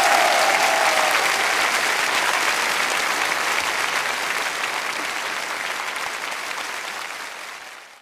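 Audience applause, a dense clapping that fades out gradually and cuts off near the end.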